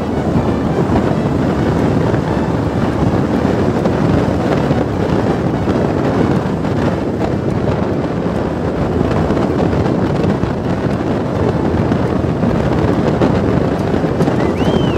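Wind buffeting the microphone on a moving motorcycle, with the steady noise of the bike running along the road underneath.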